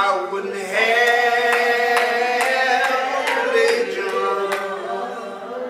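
Slow, unaccompanied church hymn singing in the manner of a deacons' devotion, the voices drawing out long held notes. A few sharp taps sound among them.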